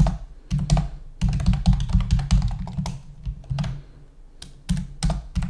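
Typing on a computer keyboard: quick runs of keystrokes, with a short pause about four seconds in.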